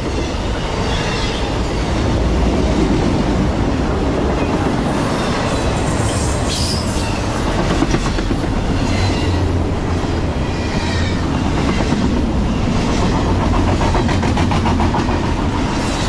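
Norfolk Southern intermodal freight train's double-stack container cars and trailer flatcars rolling past close by at speed. A steady heavy rumble with clattering wheels, and high-pitched wheel squeals now and then.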